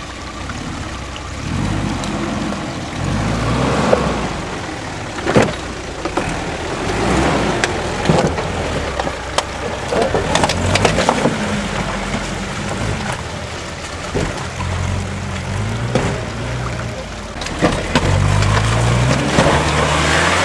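4x4 SUV engine revving up and down in bursts as the vehicle crawls over rocks and mud, with sharp knocks as it lurches over the stones.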